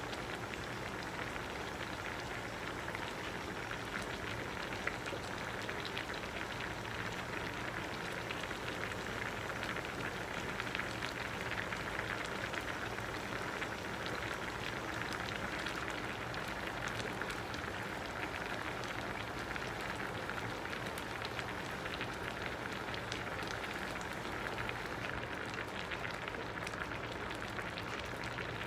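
Vegetable broth boiling in a stainless steel saucepan: a steady bubbling with many small pops and crackles.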